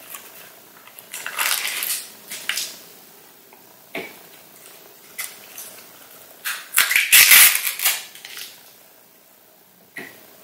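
Peel-off lids being pulled off plastic McDonald's dipping-sauce cups close to the microphone: crinkling, tearing crackles in two bursts, the louder one about two-thirds of the way through. A sharp tap about four seconds in.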